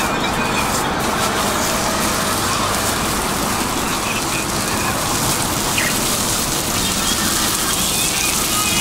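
Steady sizzling on a hot steel street-food griddle as yellow paste is squeezed onto it.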